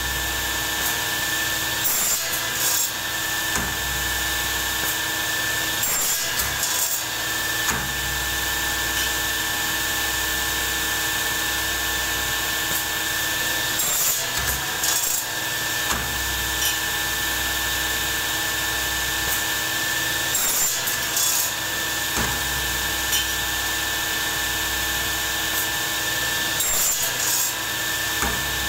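A handheld electric power tool runs steadily with a constant high motor whine. Every several seconds there is a brief harsher disturbance in the sound.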